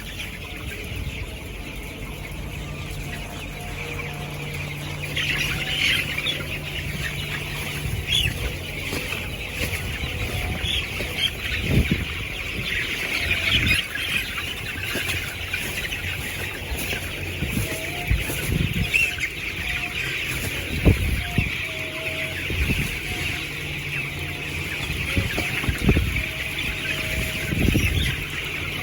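Dense, continuous chatter of a large flock of young broiler chickens, many birds peeping and clucking at once, over a steady low hum with a few short thumps.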